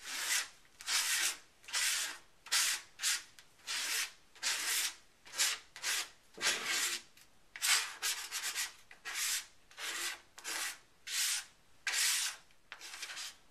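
An old plastic card scraping remover-softened adhesive off a plastic Cricut cutting mat, in short rasping strokes at about two a second.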